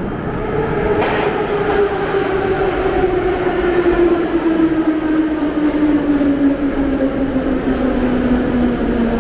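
Metro train pulling into a station platform, its motor whine falling steadily in pitch as it slows, over the rumble of the wheels. There is a sharp click about a second in.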